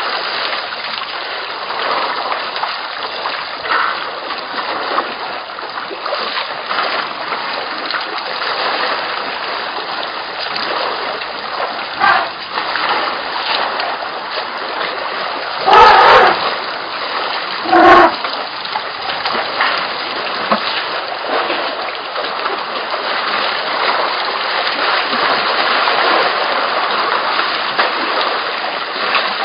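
Water splashing and trickling as African elephants drink and wade in a shallow waterhole, a steady splashy wash with many small splashes. About halfway through come two louder, short bursts about two seconds apart.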